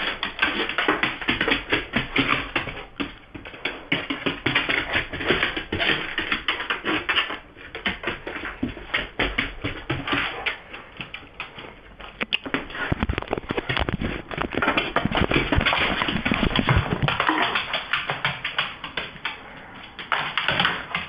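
A dog's claws clattering and scrabbling on a hard floor in rapid, irregular taps as it chases a laser pointer dot, with short lulls about 7 s and 12 s in.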